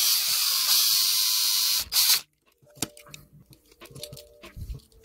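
Small power drill boring out the rivet on the base of a diecast Hot Wheels car to take it apart: a steady high whine that stops about two seconds in, then a brief second burst. Light clicks follow as the car is handled.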